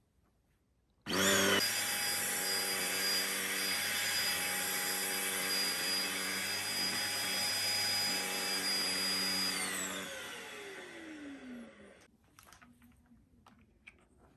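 Deerma bed vacuum cleaner for dust mites switched on: its motor spins up quickly to a steady high whine and runs for about nine seconds, then is switched off and winds down over about two seconds. A few light clicks follow.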